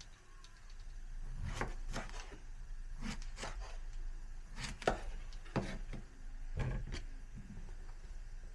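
Knife chopping on a wooden cutting board: about a dozen separate strokes at an uneven pace.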